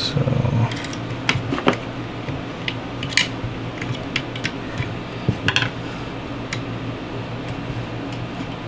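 Scattered light metallic clicks and scrapes of small steel parts being worked by hand: the spring plate being wiggled into place in a Type 81 receiver while a small screwdriver holds the spring back. A steady low hum runs underneath.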